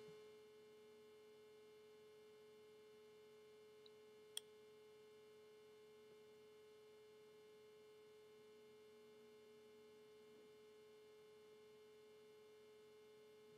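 Near silence: only a faint steady hum, with one faint click about four seconds in.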